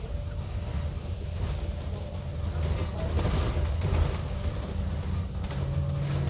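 ADL Enviro 400 double-decker bus under way, heard from on board: a steady low engine drone with a faint thin whine and light rattles.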